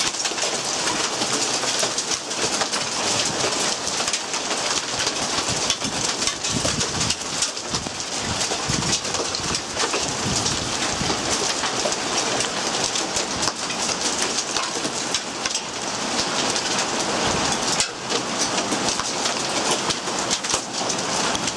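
Heavy rain mixed with hail pelting down, a dense, steady patter of countless small hits.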